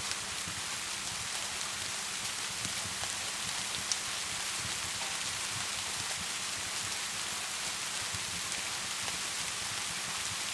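Rain and a crackling wood fire: a steady hiss with scattered small crackling pops, one sharper pop about four seconds in.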